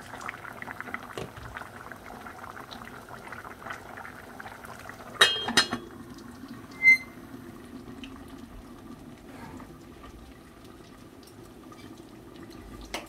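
A pot of food bubbling steadily at a boil. About five seconds in there are a few sharp metal knocks of utensils, and a second later a brief high ring.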